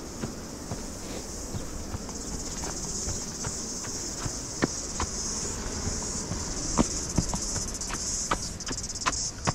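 A steady, high-pitched chorus of insects shrilling in the coastal scrub, with the runner's footfalls on the dirt trail sounding as sharp, regular taps.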